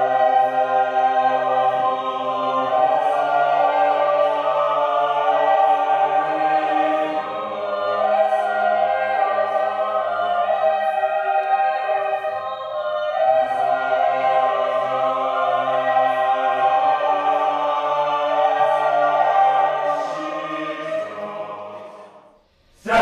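Choir singing slow, sustained chords in several parts. It fades out near the end.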